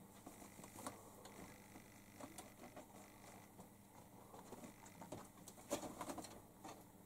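Faint scratching and light knocks of a cat's claws and paws on a wooden box as it clambers over it and down its side, with the sharpest knock late on.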